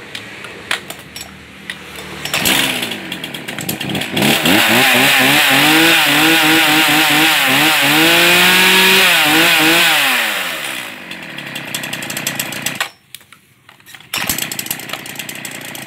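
Zenoah Komatsu G3500 two-stroke chainsaw engine idling, then revved up and held at high revs for about six seconds with the pitch wavering up and down. It drops back to idle and then cuts out suddenly about three seconds before the end.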